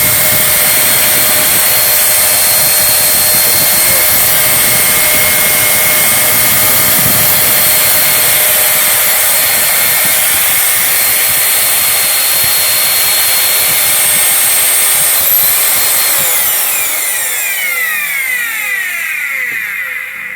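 Vacuum cleaner's small commutator motor, with freshly fitted bearings, running at full speed with a steady high whine, then spinning down with a falling whine after it is switched off about fifteen seconds in.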